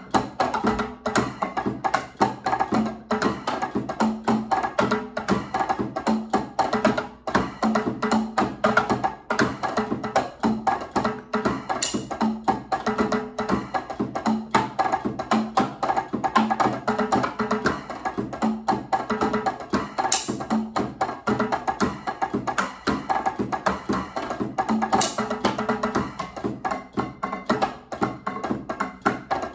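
Electronic drum kit played with sticks in a Latin percussion groove, fast strokes over a steady beat.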